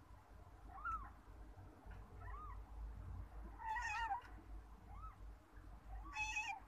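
Newborn kitten mewing: thin, short, high-pitched cries repeated every second or so, with two louder, longer cries about four and six seconds in.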